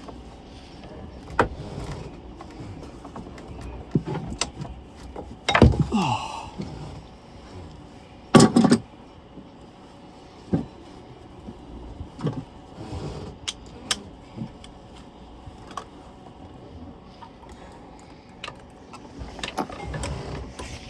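Metal hand tools clinking and knocking in a boat's diesel engine bay as the engine mount bolts are worked loose, with scattered light clicks. There is a louder clunk with a short falling squeak about five and a half seconds in, and a loud knock about eight and a half seconds in.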